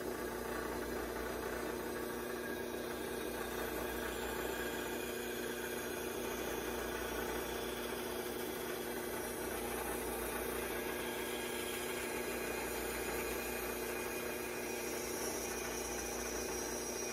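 Bandsaw motor running with a steady hum while a small block of wood is fed into the blade to be cut.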